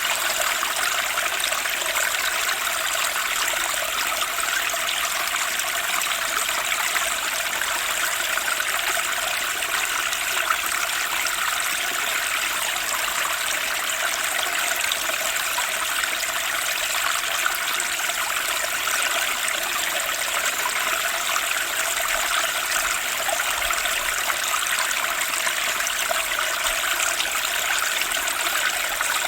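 Turbulent spring stream: water rushing and splashing steadily, bright and full, with no pauses.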